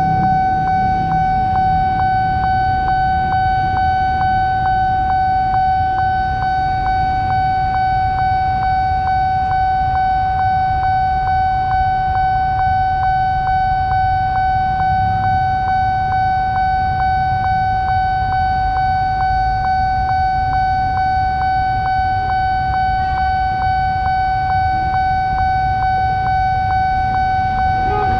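Railroad crossing's electronic warning alarm sounding one continuous high tone with faint regular ticks, over a steady low rumble.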